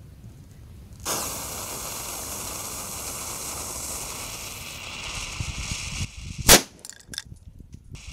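An M90 firecracker's lit fuse hisses for about five seconds, then the firecracker goes off in a single loud bang about six and a half seconds in. A few faint clicks follow the bang.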